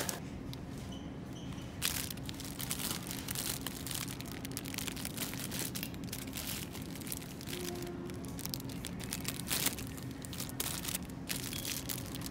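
Crinkling and crackling handling noise with many scattered clicks, over a faint steady low hum.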